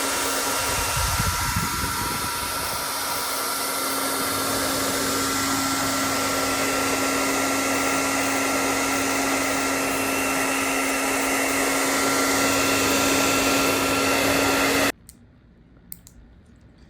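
Hot-air blower running steadily with a whirring hum, heating the phone-style glued screen adhesive to soften it. It switches off abruptly near the end, leaving a few light clicks.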